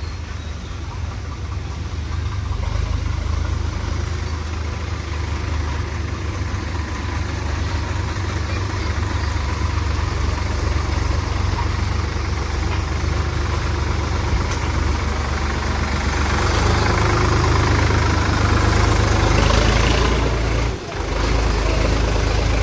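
Diesel engine running steadily, getting louder over the last several seconds, with a brief drop shortly before the end.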